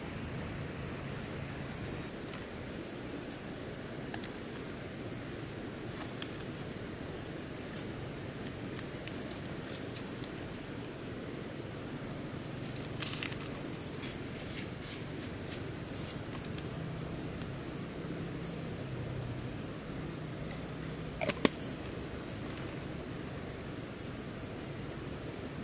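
Quiet outdoor background hiss with a steady high-pitched whine, broken now and then by sharp clicks and taps as food containers are handled, the loudest a quick double click about 21 seconds in.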